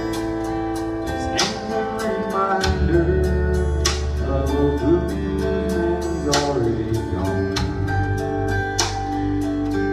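Live blues band playing a song: guitar over a steady beat, with a sung or bending melodic line.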